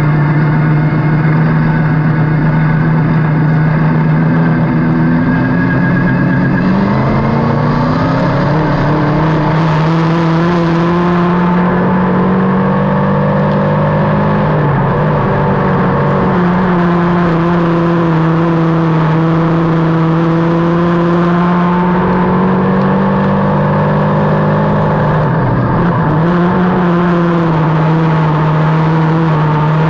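Dirt-track race car's engine heard from inside the cockpit, running at steady moderate revs. The pitch climbs about seven seconds in, then dips briefly twice as the driver eases off and back on the throttle.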